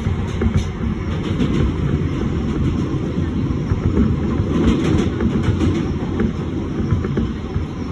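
New York subway 7 Express train running at speed, heard from inside the car: a steady rumble of wheels on rails with scattered clicks and clacks.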